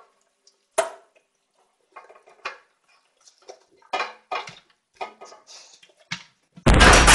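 A dog pawing at a toaster oven's pulled-out wire rack on a kitchen counter: scattered clinks, knocks and scrapes. About six and a half seconds in, a sudden loud crash starts, an added sound effect.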